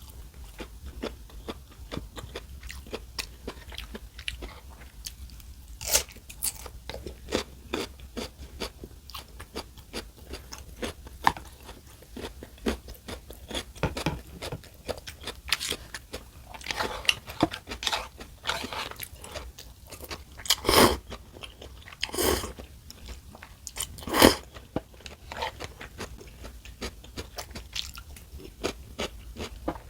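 Close-up eating sounds: a person chewing and biting food, with steady small wet clicks and several louder crunches about 6, 11, 21, 22 and 24 seconds in.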